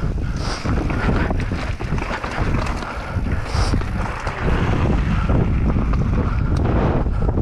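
Wind buffeting the microphone over the rumble and rattle of a mountain bike rolling fast over rough trail, with many small knocks from the tyres and frame hitting bumps.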